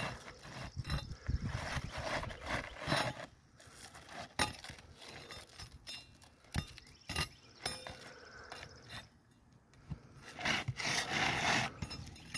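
Flat metal pry bar scraping and sliding under asphalt shingles as they are pried up: irregular gritty rubbing strokes with a few sharp clicks, and a louder stretch of scraping near the end.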